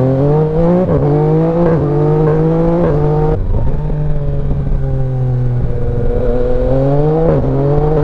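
Yamaha Tracer 900 GT's three-cylinder engine pulling hard, heard from the rider's seat: its pitch climbs with short dips at each of three quick gear changes, then runs lower and steadier before easing off near the end.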